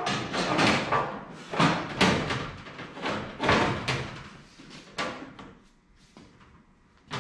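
Sheet-metal race-car body panels knocking and rattling as they are handled and fitted by hand: a string of irregular clunks that stops about five seconds in.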